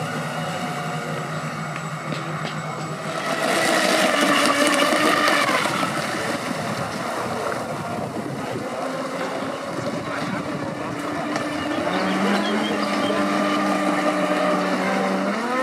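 Radio-controlled model speedboat running fast across open water, its motor whine over the hiss of spray. The whine swells loudest about four seconds in and falls in pitch as the boat passes, then settles into a steady lower drone near the end.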